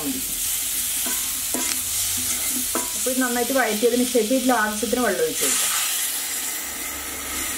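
Spiced vegetables sizzling in oil in a steel kadai while being stirred and scraped with a wooden spatula. About six seconds in, water is poured into the hot pan.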